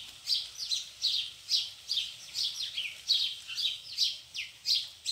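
A bird chirping over and over: short, quickly falling high chirps, about three a second.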